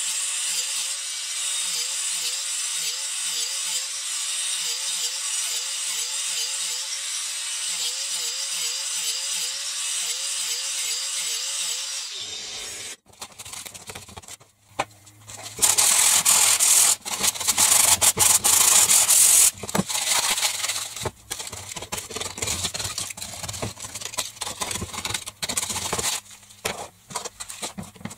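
Angle grinder cutting into a grey PVC pipe as the pipe is turned against the disc, with a steady hiss and a tone that wobbles two to three times a second. About twelve seconds in the grinding stops, and rough, irregular scraping and rubbing strokes follow, loudest for a few seconds in the middle.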